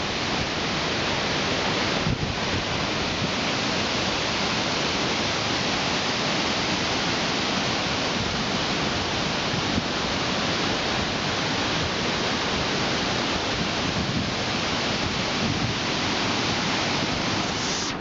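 Waterfall in flood after heavy rain, its swollen brown torrent pouring over boulders in a steady, dense rush of water.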